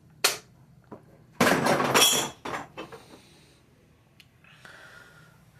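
A sharp click, then about a second of loud clattering and rattling, followed by a few shorter rattles.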